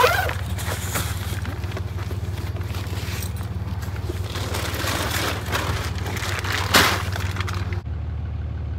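Groceries handled out of a shopping cart: plastic wrap on a pack of water bottles crinkling and bags rustling, with louder knocks of items being set down near the start and about seven seconds in. A steady low hum runs underneath and drops away abruptly near the end.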